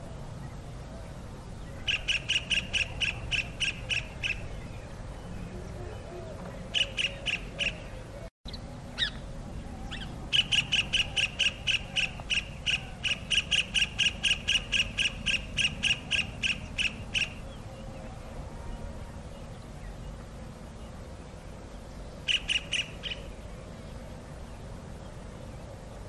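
Kingfisher calling: runs of rapid, evenly spaced high-pitched piping notes, about four a second, in four bursts, the longest lasting about seven seconds. The sound cuts out briefly for a moment after the second burst.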